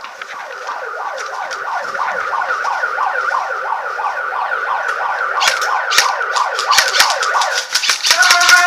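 Electronic siren sounding in fast repeating up-and-down sweeps, about three a second, growing louder. From about five and a half seconds in, sharp snaps of airsoft guns firing join it and come thick and fast near the end, as the siren changes to a steadier tone.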